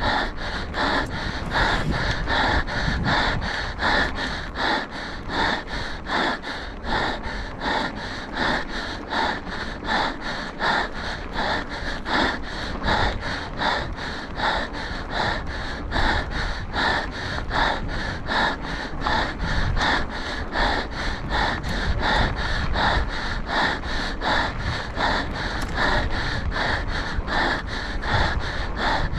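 A mountain-bike rider's heavy breathing from hard exertion, quick and rhythmic at about two to three breaths a second, over a steady low rumble.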